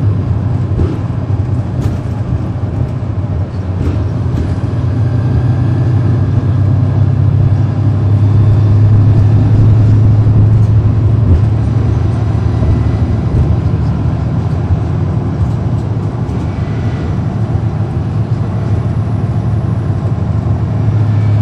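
Cummins ISL9 diesel engine of a NABI 416.15 transit bus heard aboard while the bus is under way, a steady low drone. It grows louder from about a third of the way in to about halfway, eases off, then builds again near the end.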